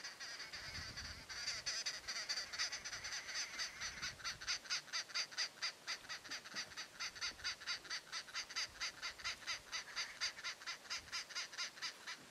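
A bird calling in a long, fast, even series of harsh notes, about five a second, that starts about a second and a half in and stops near the end.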